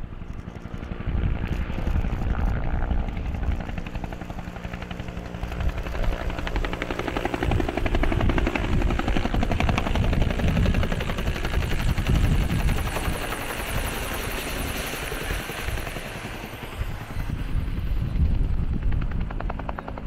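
Bell UH-1 helicopter with a two-bladed main rotor flying low overhead. Its rapid rotor beat builds through the first half and is strongest in the middle stretch as it passes close, then eases.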